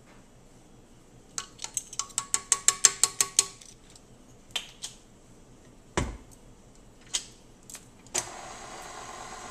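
A quick run of ringing metallic clinks, a few single knocks and a heavy clunk as the tilt head of a KitchenAid stand mixer is lowered into place. Near the end the mixer's motor starts and runs steadily.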